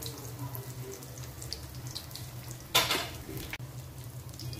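Vermicelli-coated chicken cutlets deep-frying in hot oil: a steady bubbling with scattered small crackles over a low hum. A little before three seconds in comes a brief louder burst as the metal spatula works against the pan to lift a cutlet out.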